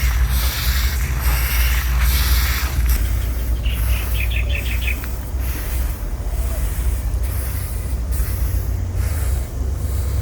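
Drying rice grains swishing as they are spread and pushed about by hand and foot, over a steady low rumble, with a short chirping bird trill about four seconds in.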